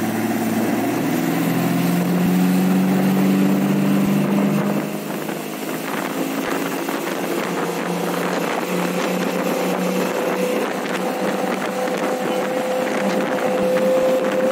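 A 1986 Ski Supreme ski boat's 351 Windsor small-block V8 running under throttle. Its pitch climbs over the first two seconds, eases and drops in level about four and a half seconds in, then holds a steady tone that rises slowly toward the end, over a rush of wind and water noise.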